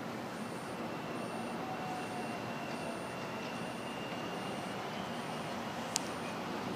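Steady noise of a Metra commuter train approaching from a distance, with a faint high whine that rises slightly in pitch. A sharp click comes about six seconds in.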